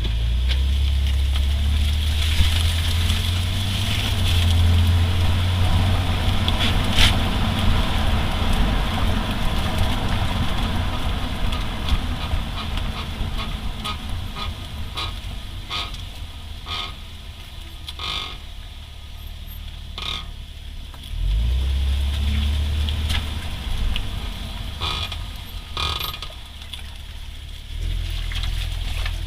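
2008 Honda Accord V6 on the move, a heavy low road and engine rumble with sharp clunks and knocks at intervals, more of them in the second half. This is the rear-end clunking under braking that remains on both sides after new rotors, pads and greased caliper slide pins; its cause is not yet found.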